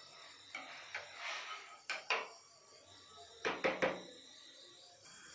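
Scissors snipping through a cotton sock, a few separate sharp clicks, then the metal scissors set down on a wooden table: three knocks close together about three and a half seconds in, the loudest sound.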